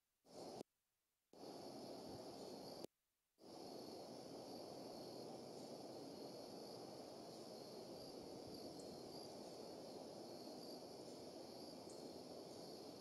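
Faint, steady outdoor background noise picked up by a nest-camera microphone: a low rushing hiss with a thin high whine over it. It cuts out to dead silence three times in the first few seconds, then runs on evenly, with a couple of tiny ticks later on.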